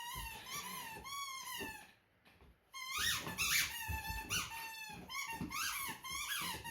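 Dog's squeaky toy squeaking over and over in quick runs, each squeak a short rising-and-falling whistle, with a brief pause about two seconds in.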